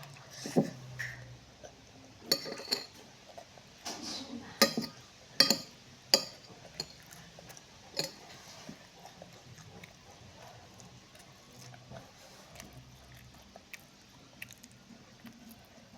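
Cutlery and dishes clinking and clattering while eating, a quick run of sharp knocks in the first half that thins to a few light ticks later.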